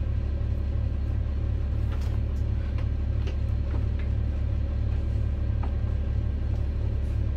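A steady low hum, with a few faint light knocks as wooden folding chairs are lifted and handled.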